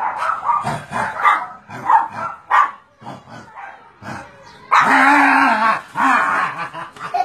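Shih tzu puppy barking and yipping in a quick run of short calls, followed about five seconds in by a loud drawn-out cry lasting about a second, then a shorter one.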